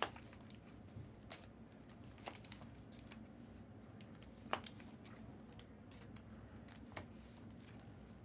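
Faint, scattered clicks and taps over a low steady room hum, with the sharper clicks right at the start and about 2, 4.5 and 7 seconds in.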